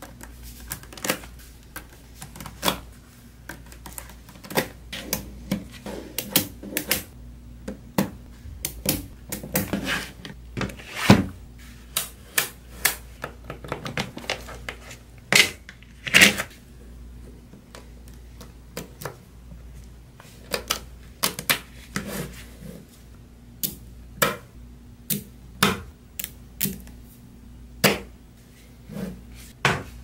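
Small neodymium magnetic balls clicking and snapping together as they are pressed into sheets and blocks and set onto a model, in irregular sharp clicks with a few louder snaps.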